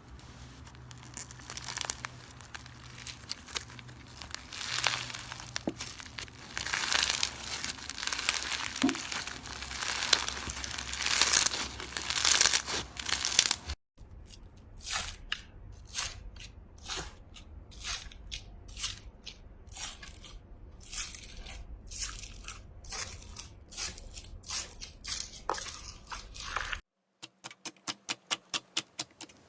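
Slime being squeezed and poked, crackling and popping, in three cut-together clips: a dense crunchy crackle for about the first half, then a string of separate pops and clicks, and near the end a quick, even run of clicks several times a second.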